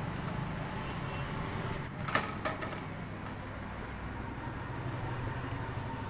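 A few sharp clicks and knocks of a plastic PVC pipe and wires being handled, bunched together a little after two seconds in, over a steady low background rumble.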